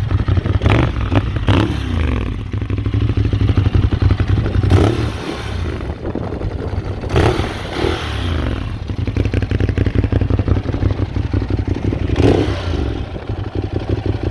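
Ducati Monster 821's 821 cc L-twin engine running under way in Urban riding mode, where power is limited to 74 hp, its pitch rising and falling as the throttle opens and closes. Several brief sharp bursts of noise stand out over the engine.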